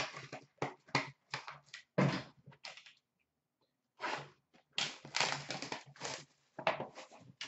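Hands handling a trading-card box and its packaging on a glass display counter: a run of taps and knocks, a short pause, then longer rustling and crinkling of the wrapping.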